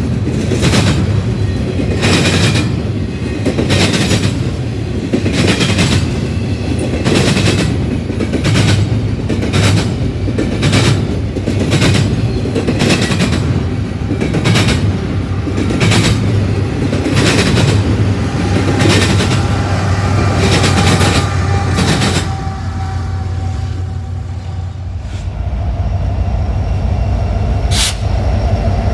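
Loaded double-stack intermodal train rolling past, its wheels clicking over the rail joints in a steady clickety-clack over a low rumble; the clicks stop after about 22 seconds as the last cars pass. From about 25 seconds a diesel locomotive, an EMD SD70M-2, passes with its engine running as a steady low drone, with a brief high squeak near the end.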